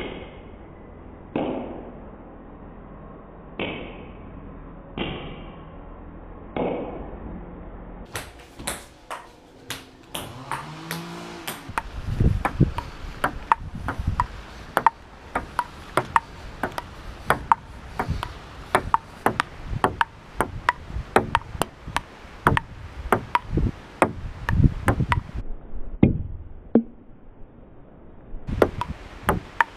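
Table tennis rally: the celluloid ball clicking rapidly off bats and the table, several hits a second, with a short break before it starts again near the end. In the first few seconds, only single knocks about a second and a half apart.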